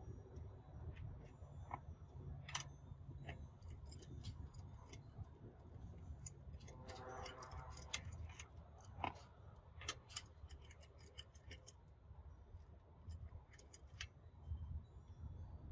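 Faint, irregular metallic clicks and ticks as lug bolts are loosened and turned out of a BMW E90's wheel hub with a lug wrench and by hand, over a low steady rumble.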